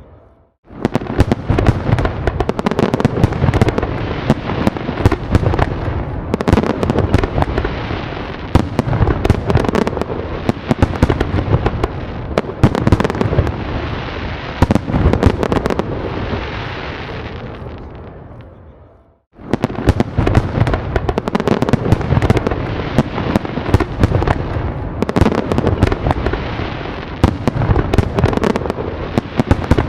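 A dense fireworks barrage: many loud bangs and pops overlapping, with a continuous rumble and crackle beneath them. About two-thirds of the way through it fades down and stops for a moment, then a fresh barrage starts straight away.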